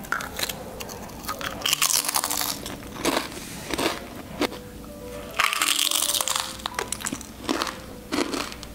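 Close-up crunching of potato chips being bitten and chewed, in loud crackly bursts about two seconds in and again after five seconds, over background music.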